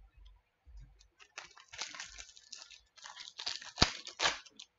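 Trading card packs and cards being handled: a run of crinkling and rustling, with one sharp snap a little under four seconds in.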